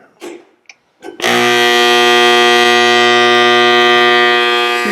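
An armature growler switched on about a second in, giving a loud, steady electrical hum as an armature is tested for shorted windings.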